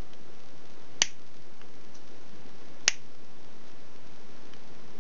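Side cutters snipping off soldered pin-header pins close to a circuit board: two sharp clicks, about two seconds apart.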